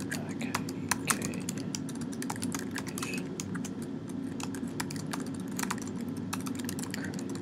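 Typing on a computer keyboard: irregular key clicks, several a second, over a steady low hum.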